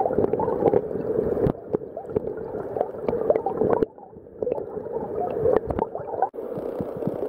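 Highland stream heard from underwater: a steady, muffled rush of gurgling water and bubbles from a small cascade, flecked with many small bubble pops.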